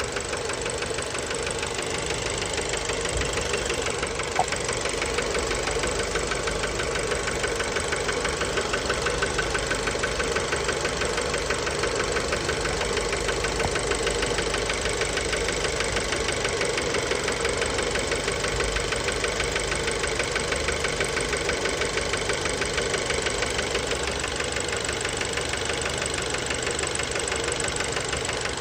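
Fiat Bravo's 1.4 T-Jet turbocharged four-cylinder engine running steadily with a fast, even knocking rattle: rod knock from worn connecting-rod bearings.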